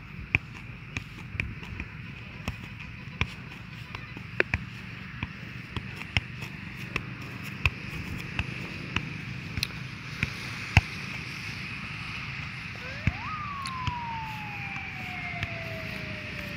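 A football being juggled: a string of sharp, irregular thuds from foot, knee and chest touches on the ball, mostly one to two a second, over a steady high hiss. About thirteen seconds in, a separate tone rises quickly and then slides slowly down through the last few seconds, like a siren winding down.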